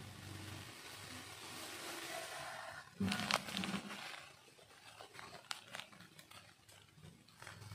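Hands rustling and crinkling a coarse burlap (jute) drawstring pouch as they loosen its drawstring. The rustling starts suddenly about three seconds in, then tapers off into scattered small rustles.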